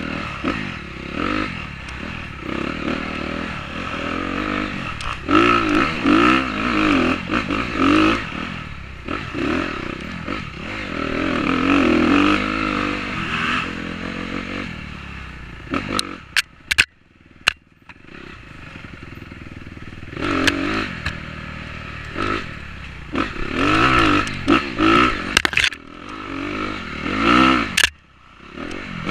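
Dirt bike engine revving up and down over and over as it is ridden along a rough trail, the throttle opening and closing. A little past halfway the engine drops back almost to nothing and a few sharp clacks come through, and it dips briefly again near the end.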